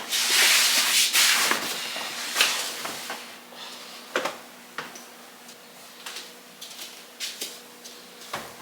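Rustling and handling of laundry as clothes are gathered up, loudest in the first two seconds or so, then quieter with scattered small knocks and clicks.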